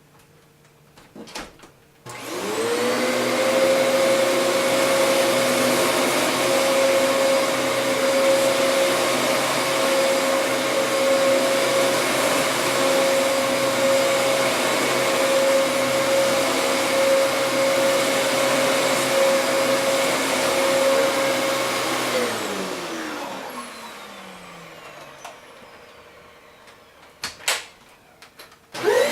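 Vacuum cleaner switched on with a click, its motor spinning up quickly to a steady high whine and running for about twenty seconds, then switched off and winding down over a few seconds. A few clicks follow, and the motor starts up again right at the end.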